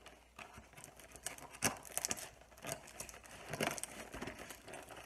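Packing tape being peeled off a cardboard box by hand and the box handled, giving irregular crackling and rustling with a few sharper crackles.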